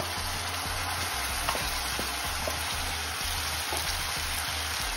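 Hot oil with fried onion, garlic and ginger sizzling steadily in a kadai as pureed mustard greens are added, with a few light clicks of a spoon scraping the greens out of the bowl.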